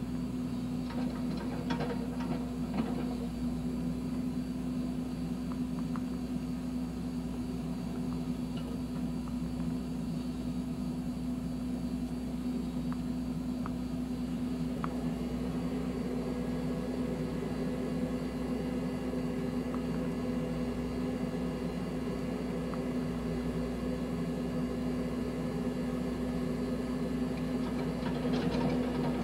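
John Deere backhoe's diesel engine running steadily with a constant drone, with a few faint knocks near the start and near the end.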